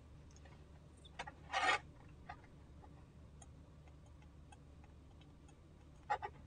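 Faint, irregular light clicks and taps of a stylus writing on a tablet screen, with a brief soft rush of noise about one and a half seconds in.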